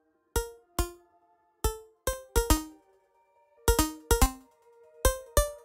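Music: a sparse run of single struck electronic notes, each sharp at the start and fading within about half a second, in an uneven rhythm of roughly two notes a second.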